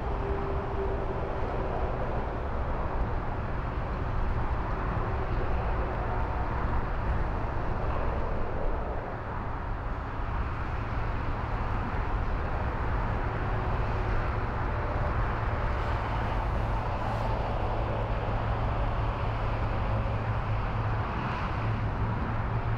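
Distant jet airliner noise from an Air Dolomiti Embraer E195 landing, a steady whooshing roar with a few faint held engine tones over a constant low rumble.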